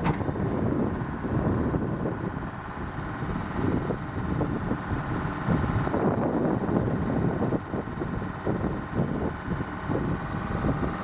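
Hein-Werner C12HD crawler excavator's diesel engine running under load with its hydraulics working as the machine moves, the sound rising and falling. Two short high squeaks come about four and nine seconds in.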